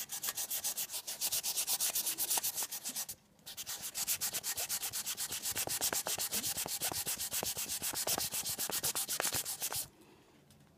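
800-grit wet/dry sandpaper rubbed by hand over the aluminum body of a model train passenger car, quick back-and-forth strokes at about eight a second to wet-sand out scratches. The strokes pause briefly about three seconds in and stop suddenly near the end.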